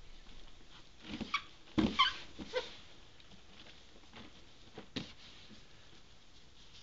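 Damp shredded newspaper rustling and crackling as a hand stirs it as worm-bin bedding in a plastic storage tote. The loudest crackles come about two seconds in, along with a few short squeaks, and there is one sharp tick near five seconds.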